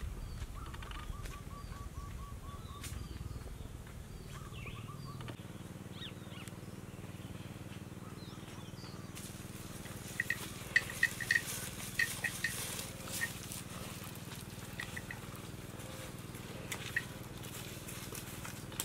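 Outdoor rural ambience with birds calling, including a rapid chirping trill in the first few seconds. From about ten seconds in there is a scatter of short, sharp, high clinks or ticks.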